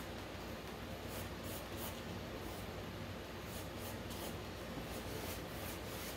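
Faint swishes of a paintbrush stroking wet acrylic paint across a canvas board to blend it, with the brush working paint on a foam plate palette for a moment about four seconds in.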